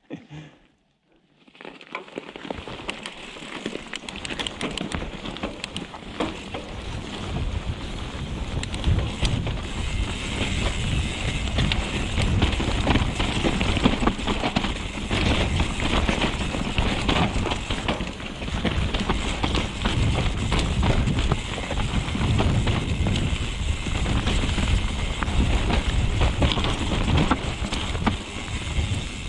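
Mountain bike riding a forest trail: tyres rolling over dirt and stones, with a continual clatter of knocks and rattles from the bike over bumps and wind buffeting the action camera's microphone. The noise builds over the first few seconds as the bike picks up speed, then stays loud.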